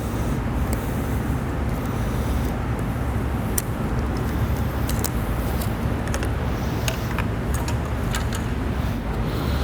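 A steady low hum runs under scattered small, sharp clicks of plastic connectors and hoses being worked loose from a motorcycle's airbox and injectors.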